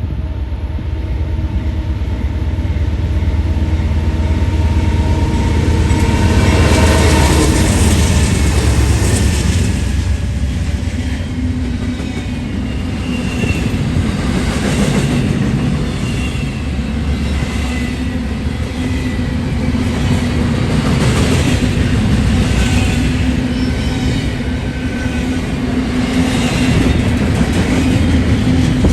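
A train passing close by: diesel locomotive engines run with a steady hum for about the first seven seconds, then the cars roll past with a repeating clickety-clack of wheels over rail joints and faint, brief wheel squeals.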